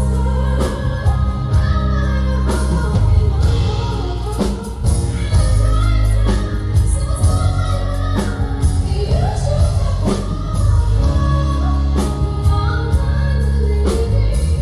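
A woman singing live with a full band, the drums loud in the mix over a strong, steady bass line.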